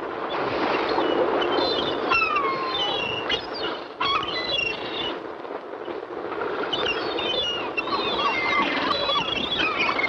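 A flock of gulls calling, many short falling squeals overlapping one another over a steady wash of surf. The calls grow thicker from about six seconds in.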